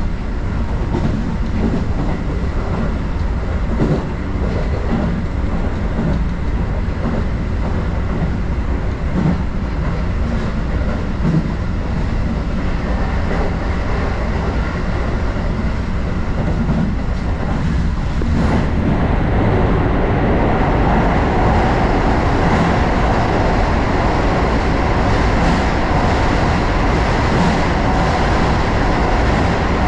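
Keio Sagamihara Line electric train running between stations: a steady rumble of wheels on rail with scattered short clicks. About 18 seconds in, the running noise grows louder and brighter and stays that way.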